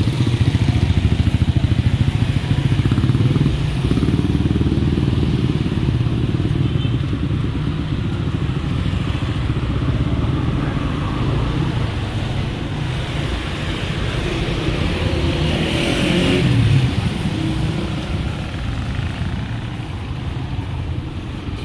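Street traffic of motorcycles and motorcycle-sidecar tricycles passing, a continuous low engine rumble. It swells as one passes close about sixteen seconds in, then eases off.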